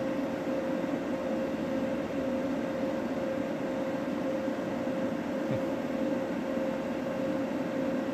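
Steady machine hum: a constant mid-pitched tone over an even whirring noise, unchanging throughout.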